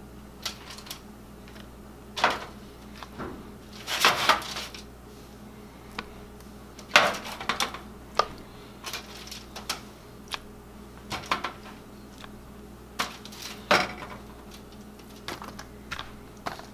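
Metal kitchen tongs clicking and clattering while salmon fillets are lifted from a pan and set into plastic food containers: irregular sharp clicks and knocks, a few louder clacks among lighter taps.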